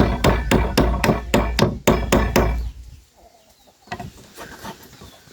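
Rapid hammering on wood, about five even strikes a second, stopping about two seconds in; after that only a few faint sounds.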